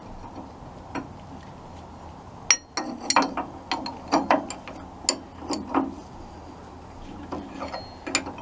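Irregular sharp metal clicks and clinks, starting about two and a half seconds in, with a few more near the end: a wrench working the nut of a VW Type 1 alternator pulley as the split pulley halves and fan belt are fitted together.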